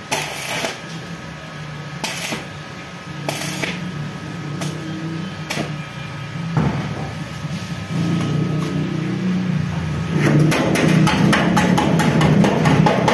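Hammer striking a steel tubular night-latch housing on a steel gate: separate blows every second or so, then a quick run of strikes over the last three seconds, with a steady low hum underneath.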